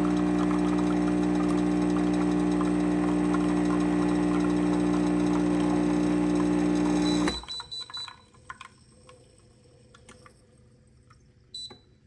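Kenmore espresso machine's pump running with a loud, steady hum while pushing water through the portafilter to pull a single shot; it cuts off suddenly about seven seconds in as the shot ends. Then a few faint drips and ticks, and a short high beep near the end.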